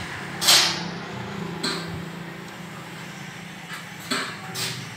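Short bursts of hiss, the loudest about half a second in and two weaker ones near the end, over a steady low engine-like hum.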